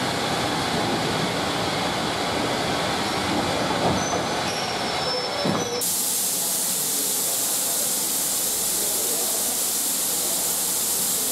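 Railway coaches rolling past with a rumble of wheels on rail and a faint high wheel squeal. About halfway through this gives way abruptly to a steady hiss of steam from a steam locomotive standing in the station.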